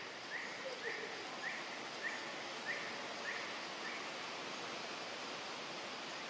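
An animal's short chirping call repeated about eight times, a little under two a second, stopping about four seconds in. Under it is a steady hiss of outdoor background noise.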